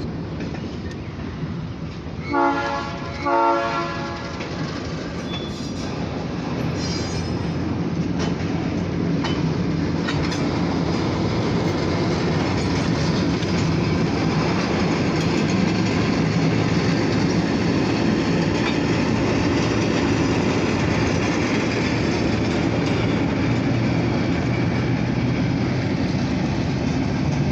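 Oil Creek & Titusville Railroad Alco diesel locomotive sounds two short horn blasts. Then the train of covered grain hoppers rolls past, the diesel running and the wheels clattering on the rails, with the sound building to a steady loud level.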